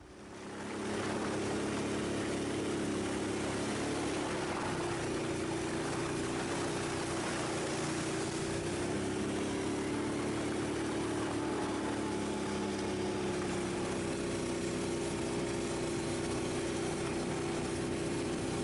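ATV engine running at a steady cruising pace, heard up close from the rider's seat, with a constant hiss over it. It swells in over the first second, then holds an even pitch and level with only slight wavers.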